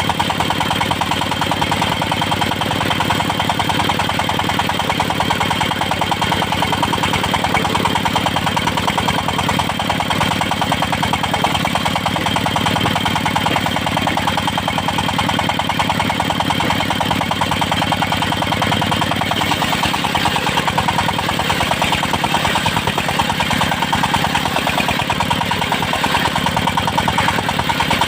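Engine-driven circular sawmill running steadily: the engine's even pulsing with a constant high whine over it.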